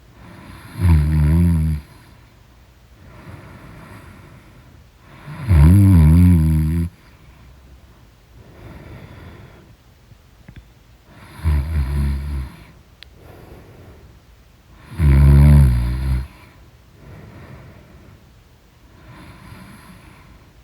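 A person snoring in deep sleep: four loud snores, each about a second long, come every four to six seconds, with quieter breaths between them.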